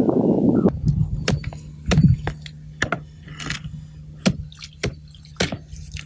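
Irregular sharp crunches of footsteps on frozen reeds and ice at the edge of an iced-over lake, over a steady low hum.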